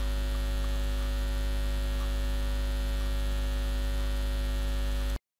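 Steady electrical mains hum with a stack of steady overtones, carried on the recording's audio track; it cuts off abruptly into dead silence near the end.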